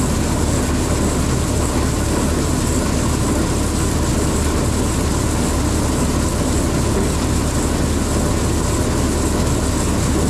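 Grinder-mixer running steadily, its unloading auger pouring ground feed into a hog feeder, with a constant low hum of the machine's drive.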